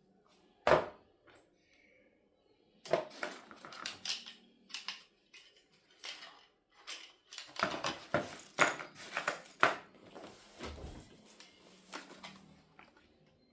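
Hard plastic items and packaging being handled: irregular clicks, knocks and rustles, with a sharp knock about a second in and a busy run of taps and rattles in the middle.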